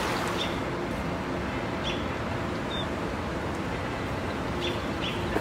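Steady wind rumble with a few short, high bird chirps.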